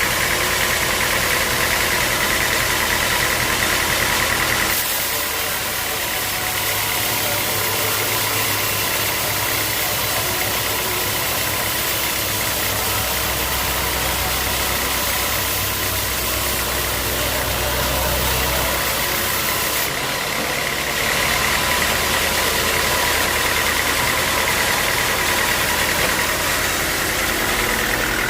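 Sawmill machinery running steadily, an engine-driven saw with a high whine. The whine gives way to a strong hiss about five seconds in and returns about twenty seconds later.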